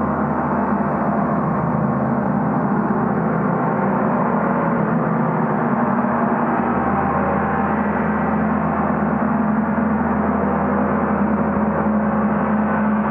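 Portable gong played continuously for a gong bath: a steady, dense wash of ringing tones with a strong low hum, sustained at an even level with no single strike standing out.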